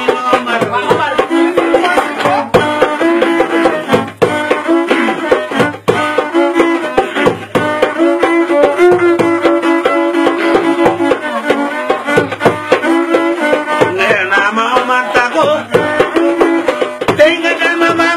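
One-string gourd fiddle playing a repeating melodic phrase, a short low note coming back in a steady rhythm, with sliding notes higher up.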